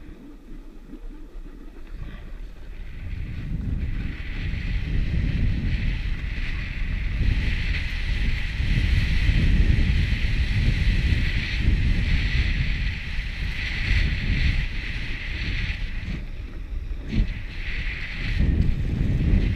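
Wind buffeting the camera's microphone during a fast descent on snow, a heavy low rumble that builds over the first few seconds as speed picks up, with the hiss of sliding over packed snow.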